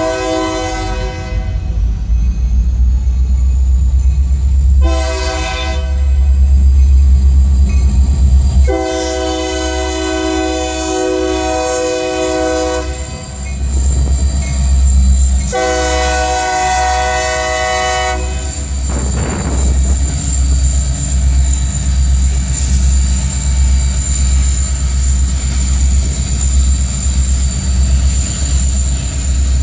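Union Pacific diesel freight locomotive sounding its horn for the grade crossing: a long blast ending a second in, a short blast near five seconds, then two more long blasts, over the low rumble of the engine. After the horn stops, the freight cars roll by with a steady rhythmic clacking of wheels over the rail joints.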